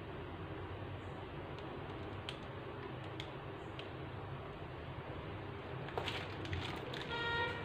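Soft clicks and crinkles from a plastic piping bag being squeezed and handled while piping buttercream, over a steady low room hum. Near the end there is a louder rustle, then a brief pitched squeak.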